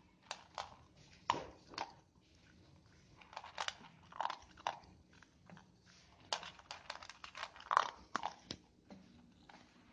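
Havanese dog chewing dry kibble from a stainless steel bowl: irregular crunches and bites, some in quick clusters with short pauses between.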